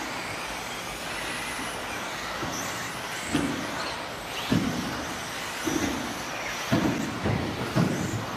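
Electric 1/10-scale 2WD RC buggies with 17.5-turn brushless motors running on an indoor track: a steady wash of motor and tyre noise with faint high whines, broken by about six short clattering thuds from the cars in the second half.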